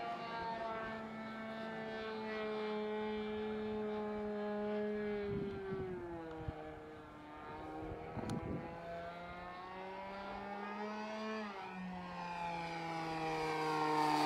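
Nitro glow engine of an RC aerobatic airplane running in flight, its steady note sliding in pitch as the plane manoeuvres. The note drops about five seconds in, and the engine grows louder near the end.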